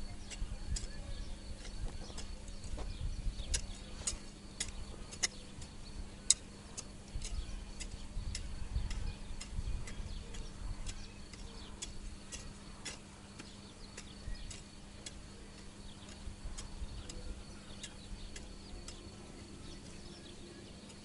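Garden hoe chopping into dry, clumpy soil while weeding between pepper seedlings: sharp irregular ticks, about one or two a second, over a low rumble of wind on the microphone.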